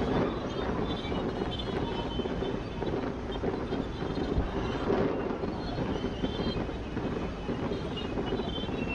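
Fireworks display: a dense, steady rumble and crackle.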